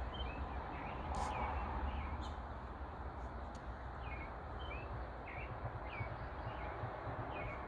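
Birds chirping: short high chirps repeating about twice a second over a steady low background rumble, with a few sharp clicks in the first few seconds.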